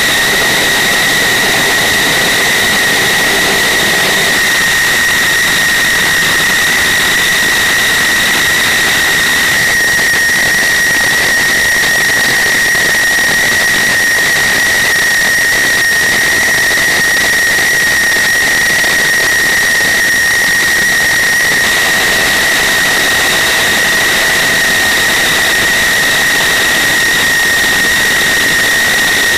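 F-16 Fighting Falcon jet engine idling on the ground: a loud, steady high-pitched whine over a hiss.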